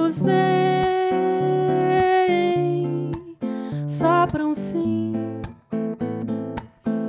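A woman singing to a fingerpicked Godin nylon-string electro-acoustic guitar. She holds one long note from the start for about two seconds, and the music pauses briefly twice near the end.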